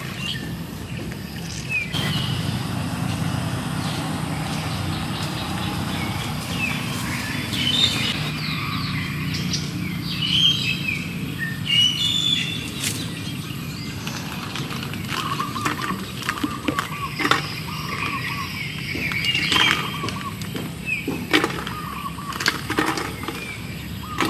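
Small birds chirping and calling over steady outdoor background noise. In the last few seconds, short knocks and clicks come as snail shells are tipped from a bamboo basket into a clay pot.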